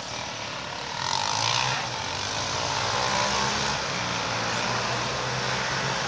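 Diesel locomotive engines running with a steady low hum, growing louder about a second in.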